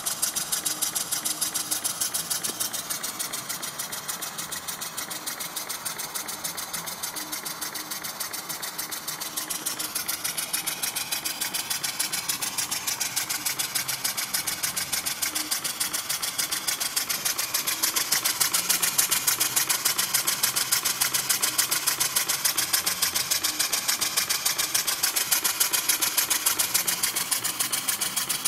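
Small horizontal single-cylinder mill-type engine running fast, its exhaust beats coming as a rapid, even pulsing. It grows louder about two thirds of the way through.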